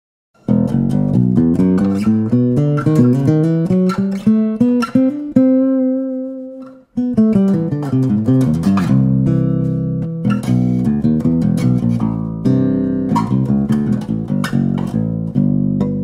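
Harley Benton HBO-850 acoustic bass guitar played fingerstyle: a quick line of plucked notes, one note left to ring and fade about six seconds in, a short break near seven seconds, then another line of plucked notes.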